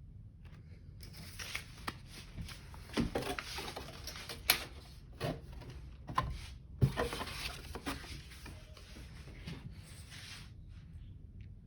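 Paper rustling and crinkling with a few sharp taps as a folded paper instruction manual is handled and its pages are turned.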